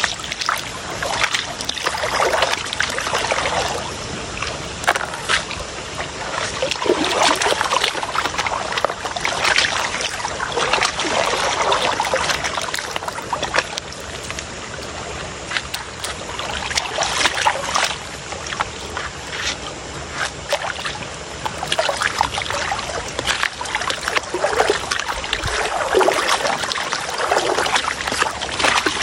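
River water sloshing and splashing in repeated surges as a large gold pan is swirled and dipped at the surface, washing sand over its rim.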